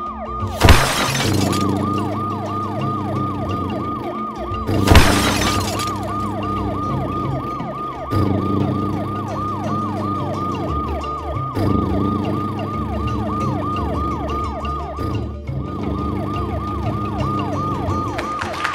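Cartoon siren sound effect: a fast, yelping wail that falls in pitch about four times a second, over steady background music. Two loud, short crashes cut in, one about a second in and one about five seconds in.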